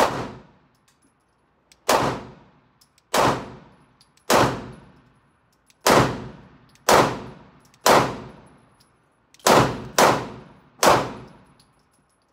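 Glock 19 MOS 9mm pistol fired ten times in slow, single aimed shots at irregular intervals of about one to one and a half seconds, including a quick pair near the end; each shot is a sharp crack followed by a short echoing decay.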